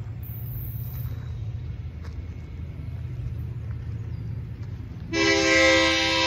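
A low steady rumble, then about five seconds in a locomotive's multi-chime air horn sounds a loud, steady chord, warning at a grade crossing.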